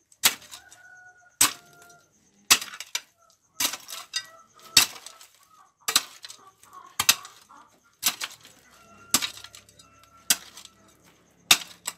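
A hoe chopping into hard, stony dirt, about one sharp blow a second for about eleven strokes, each followed by a short scrape of loosened soil.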